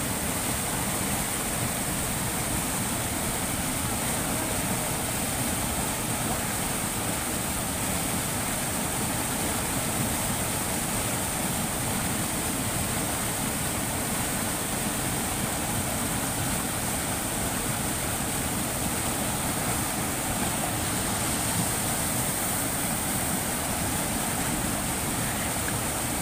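Rocky mountain stream rushing through a small whitewater cascade between boulders: a steady, unbroken rush of water.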